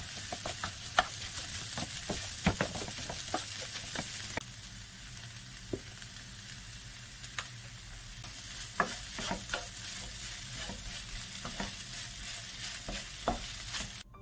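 Curry fried rice sizzling steadily in a nonstick frying pan as a wooden spatula stirs and scrapes it. Frequent short knocks of the spatula against the pan come through the sizzle.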